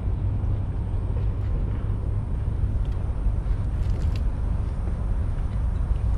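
Steady low outdoor rumble, with a few faint clicks about four seconds in.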